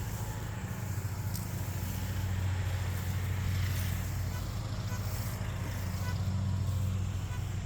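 Metal detector putting out a low, steady humming tone as the coil is swept over the lawn, swelling a little in the middle and again near the end.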